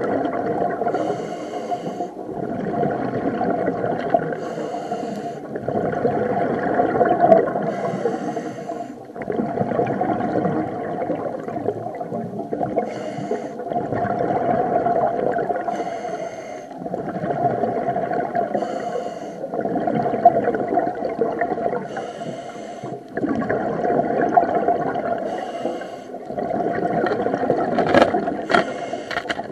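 Diver breathing through a scuba regulator underwater: a brief hiss on each inhale, then a long bubbling rush of exhaled air, repeating about every three to four seconds. A few sharp clicks near the end.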